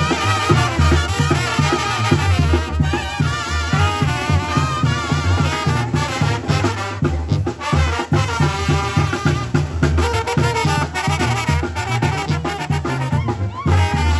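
Mexican banda playing live: brass (trumpets and trombones) carries the tune over a steady, pulsing low bass and drums.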